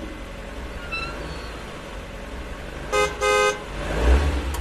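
Car horn honking twice about three seconds in, a short toot then a longer one, over a steady low rumble, followed by a swelling whoosh near the end.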